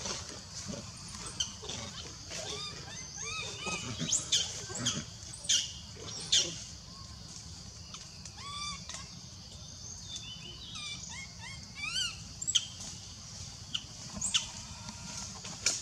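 Baby macaque giving a series of short, high squealing cries, some rising and some arching in pitch, in irregular bunches: the distress crying of an infant wanting its mother.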